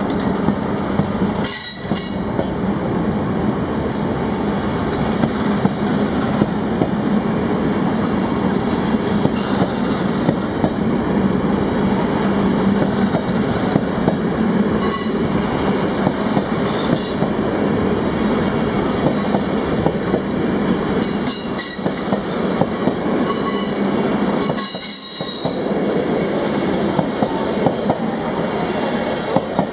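A Dutch NS locomotive-hauled passenger train rolls slowly past on curving track. There is a steady rumble of wheels on rail, and a high-pitched wheel squeal comes and goes, most often in the second half.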